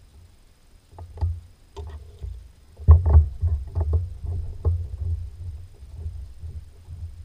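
Water lapping and slapping against the hull of a small fishing boat, in irregular knocks and splashes that begin about a second in and are loudest about three seconds in.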